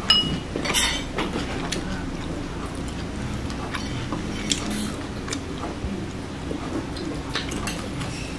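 Crunchy chewing of crisp deep-fried insects: irregular sharp crackles, the loudest near the start and about a second in, over a steady low background hum.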